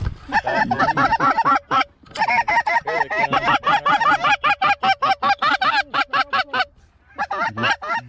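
Goose honking: a fast run of short, loud honks, several a second, with brief pauses about two seconds in and again near the end.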